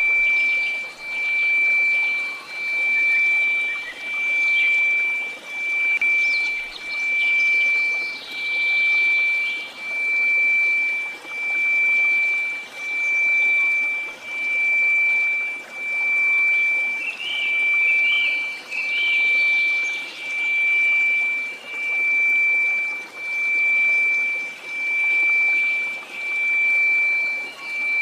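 Steady 2334 Hz pure tone pulsing in volume, swelling and fading about every one and a half seconds, over faint white-noise hiss.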